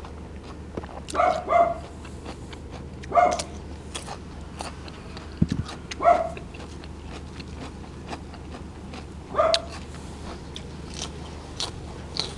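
Close-miked mouth eating sounds: small crisp chewing clicks throughout, with several short, louder slurping sucks spaced a few seconds apart.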